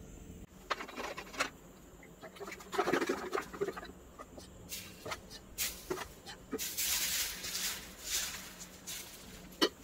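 Appam batter poured onto a hot dosa tawa and spread with a steel ladle: scattered light clicks and taps, then a sizzling hiss for about a second past the middle.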